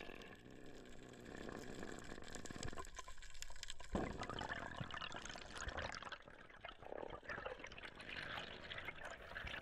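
Underwater water noise: a soft, even wash of moving water with many faint crackling clicks, and a dull knock about four seconds in.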